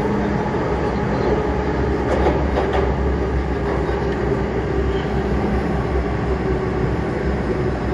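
Metro-Cammell-built MTR M-Train electric multiple unit running through a tunnel, heard from inside the carriage: a steady rumble of wheels on rail with a constant hum underneath.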